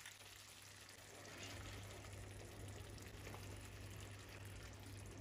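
Faint, steady simmering of tomato sauce with peppers and onion in a frying pan, with a low hum underneath.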